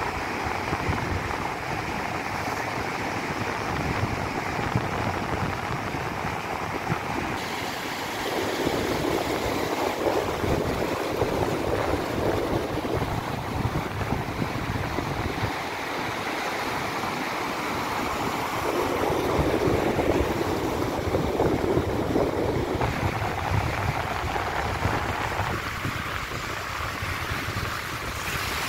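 Pacific surf washing in over a shallow sandy beach: a steady rush of breaking waves and foam, swelling louder twice as bigger waves come in.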